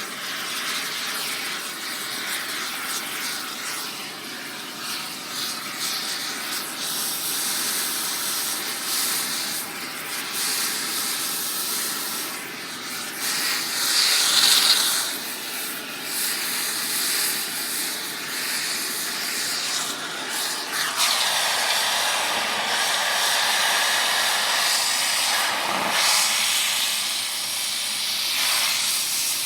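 Air torch hissing on metal: a continuous rough hiss that swells briefly about halfway through and turns into a fuller rush about two-thirds of the way in.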